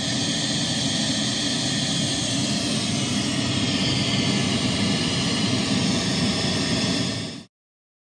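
Pink noise test signal played loud and steady through a Cicada Audio CHX 8-inch pro coaxial horn speaker, with the tweeter turned down 6 dB by its attenuator. It cuts off suddenly about seven and a half seconds in.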